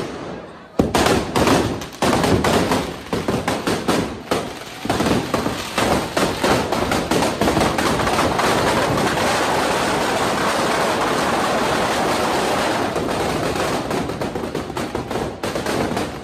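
Firecrackers packed inside a burning Ravan effigy going off. A rapid string of loud bangs starts about a second in, merges into a continuous crackle through the middle, and thins to separate bangs near the end.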